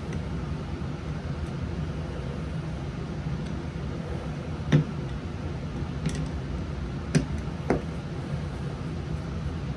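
A few sharp clicks and knocks of small metal parts and tools being handled while the top cover of a small-engine carburettor is unscrewed and lifted off, about four in all, the loudest just before the halfway point. A steady low hum runs underneath.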